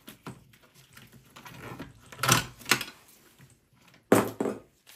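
Power supply cable connectors being unplugged from a desktop PC's motherboard and the cables handled: a few short rustling clicks, strongest about two seconds in and again near four seconds.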